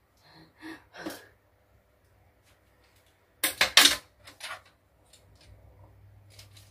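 Hard plastic and metal parts of a foldable laptop bed table clicking and knocking as it is handled and adjusted: a few light clicks, then a loud cluster of sharp knocks about three and a half seconds in, followed by a couple of smaller clicks.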